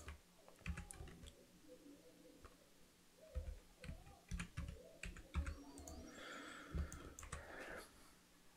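Computer keyboard keys and mouse buttons being pressed: faint, scattered clicks and taps at an irregular pace.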